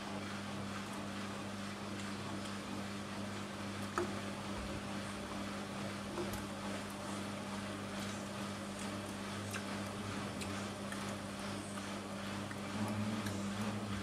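Two front-loading washing machines, a Siemens Siwamat IQ 716 and a Bosch Aquasensor WFP3231, running side by side: a steady motor hum with scattered light clicks, one sharper click about four seconds in, and a briefly louder stretch near the end.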